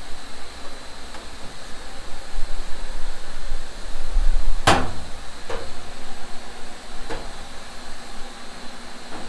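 A sharp knock about halfway through, then three fainter knocks spaced a second or two apart, over a steady background hiss with a low rumble just before the first knock.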